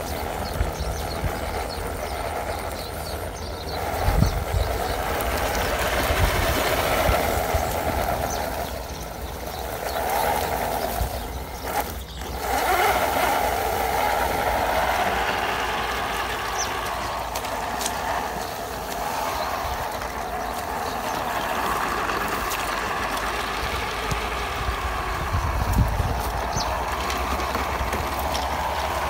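Electric motor and geared drivetrain of a scale RC crawler truck whining, rising and falling with the throttle as it pulls a loaded trailer. A couple of low thumps come about four seconds in and near the end.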